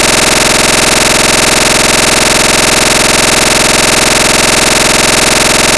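Loud, steady electronic buzz with many evenly spaced overtones that never changes: a digital glitch in the recording's audio, not a sound from the room.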